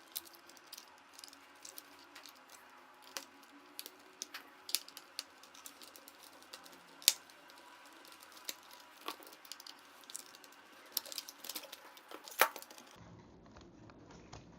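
Irregular light clicks and taps of a screwdriver and plastic parts as the screws are taken out of a robot vacuum's wheel housing, with two sharper clicks about seven and twelve seconds in.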